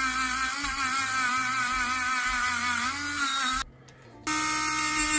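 Dremel rotary tool running with a fine wire-brush wheel scrubbing an aluminium drill housing. Its whine wavers in pitch as the brush bears on the metal. It cuts out briefly about three and a half seconds in, then runs on at a steadier pitch.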